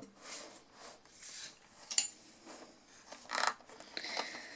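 Colour pencils being handled in their metal tin: soft scraping and rubbing, a sharp metallic click with a brief ring about two seconds in, and a louder scrape about three and a half seconds in.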